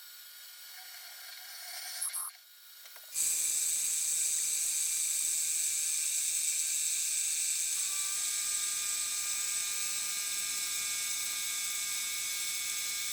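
Small electric motor running steadily with a high whine and hiss; it starts abruptly about three seconds in, after a fainter hum.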